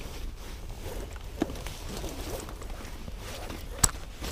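Climbing rope being fed by hand into a nylon rope bag: soft rustling and scuffing, with one sharp click near the end.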